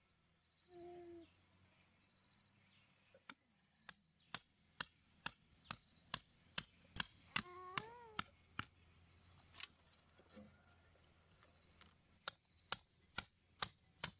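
A hammer knocking bamboo stakes into the soil: a string of sharp knocks about two a second, a pause, then another string near the end. A short pitched call is heard about a second in and again midway, over the knocking.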